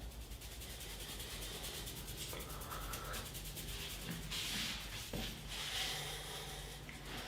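Hands rubbing over skin and hair in quick repeated strokes during a barber's head massage, with one short click a little after five seconds in.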